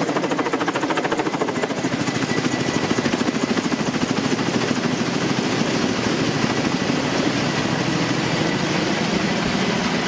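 Firefighting helicopter flying low overhead, its rotor blades making a rapid, steady chop over the engine's turbine noise.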